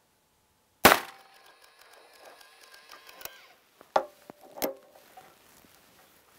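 A .44 Special single-action revolver (Taylor's & Company Cattleman) fires one shot of a 240-grain Hornady XTP handload from a machine rest about a second in, the report dying away over a couple of seconds. A few sharp metallic clicks and knocks follow as the rest is handled and reset for the next shot.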